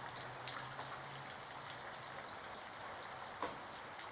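Steady rain falling, an even hiss, with two louder single drops striking close by, about half a second in and again about three and a half seconds in.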